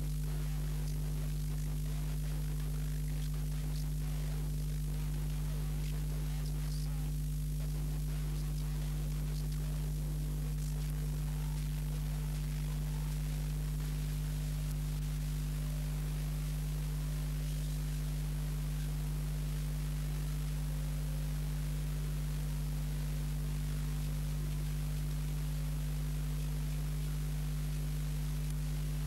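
Steady electrical mains hum with a faint hiss, unchanging throughout and with no other sound: the empty soundtrack of a silent home-movie transfer.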